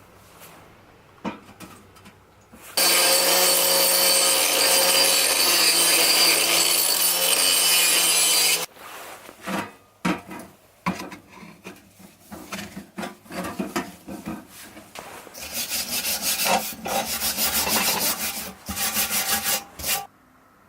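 A tool runs with a steady, loud whir for about six seconds and cuts off abruptly. Then comes a run of irregular scraping strokes that turns into fast, rhythmic back-and-forth rasping strokes near the end.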